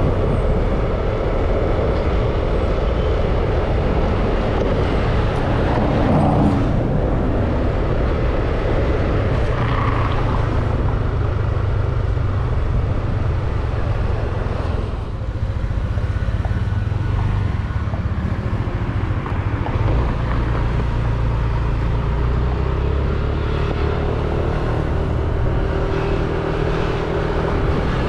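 Ride on a motor scooter through town traffic: a steady low engine hum under continuous road and traffic noise.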